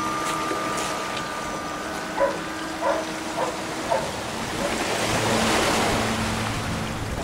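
Electronic tones from wave-sensing sound-art buoys over waves washing on the shore. A steady multi-tone drone fades in the first seconds, four short pitched blips come in the middle, and a low steady hum returns about five seconds in as the wave noise swells.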